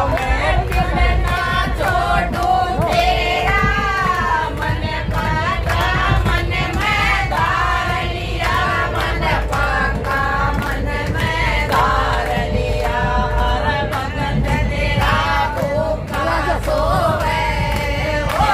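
A group of voices singing a devotional bhajan together in chorus to a steady beat, over a continuous low rumble.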